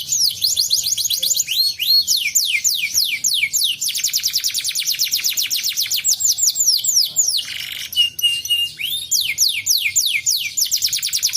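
Domestic canary singing a long unbroken song of rapid whistled notes that each sweep downward in pitch, strung into fast trills. About seven and a half seconds in there is a brief harsh rasp, followed by three short level notes.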